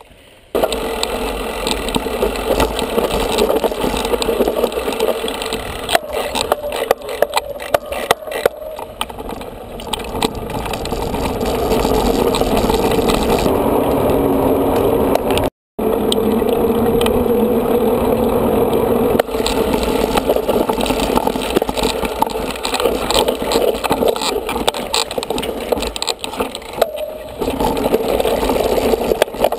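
Wind rushing over a bike-mounted camera's microphone while riding a mountain bike, with tyres rolling and the bike and camera mount rattling over rough trail. The sound drops out for a moment about halfway through.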